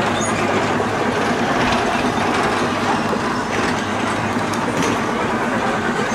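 Small ride-on tractors of a children's amusement ride running past, a steady rumble with rattling and light clicks, over busy park background noise.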